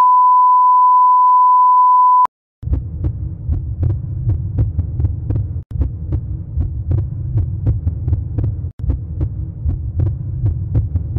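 A loud, steady 1 kHz test tone of the kind that goes with colour bars, which cuts off sharply after about two seconds. After a brief silence, an end-screen soundtrack starts: a deep, pulsing bass loop with a quick, regular clicking beat, which breaks off for an instant about every three seconds.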